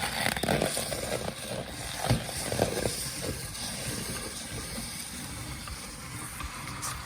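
Little meat grinder grinding colourful meringue: crackling clicks as the meringue is crushed in the first few seconds, then a steady grinding noise.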